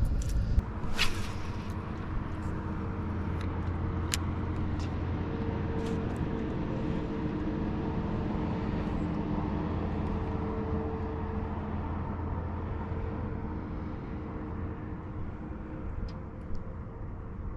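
A motor hums steadily at an even pitch, with a few sharp clicks in the first seconds. The hum eases off near the end.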